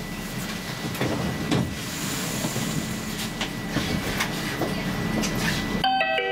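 Interior noise of a standing Stockholm A35 tram: a steady low hum with a thin high whine, and scattered knocks and rattles. Near the end the hum cuts off suddenly and an electronic chime of short falling tones sounds.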